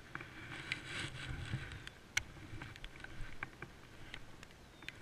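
Faint low wind rumble on the microphone, with a few scattered light clicks from handling a fishing rod and reel as a lure is worked.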